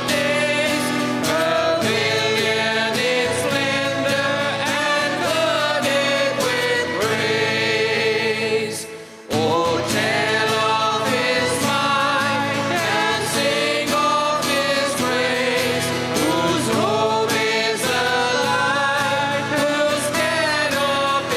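A worship band performs a gospel song, with several voices singing over guitar and keyboard. The music fades briefly about eight seconds in and comes back suddenly about a second later.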